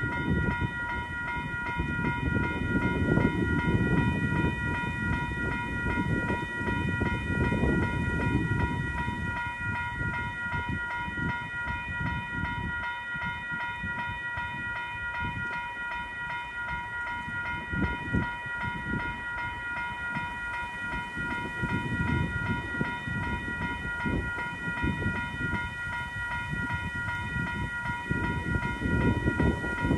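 WCH 0777 electronic level-crossing bells ringing steadily with a constant multi-tone chime while the crossing is active. Under the bells is a low rumble that swells and fades, loudest near the end.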